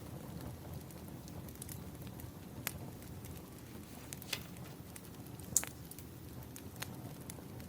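Wood fire crackling, with scattered sharp pops over a low steady rumble of the burning logs; the loudest pop comes about five and a half seconds in.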